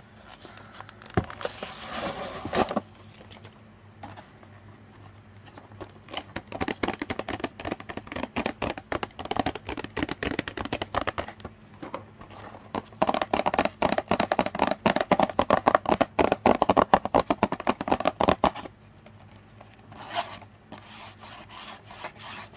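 Toy packaging being torn open and crinkled by hand: a loud tearing rip about a second in, then from about six seconds a long run of rapid crackling and rustling that stops abruptly, with a few fainter rustles after.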